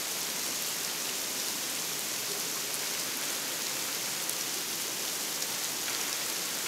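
Artificial rain from the Rain Room installation falling steadily onto a wet tiled floor: an even, unbroken hiss of pouring water.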